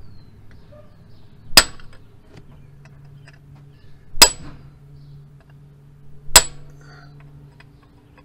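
Stubby hammer striking a brass drift held against an exhaust-manifold bolt: three sharp metallic strikes about two seconds apart, each with a brief ring. The blows shock the bolt threads so the corrosion-prone manifold bolts can be backed out without snapping.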